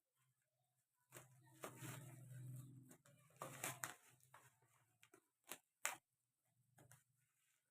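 Rustling handling noise for a few seconds, then a few separate sharp clicks, over a faint low hum: packaging or the toy being handled.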